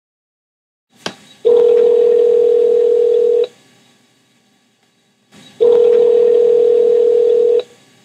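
Telephone ringback tone heard over the phone line: a click, then two steady low rings of about two seconds each with two-second gaps, the sound of an outgoing call ringing on the other end before anyone answers.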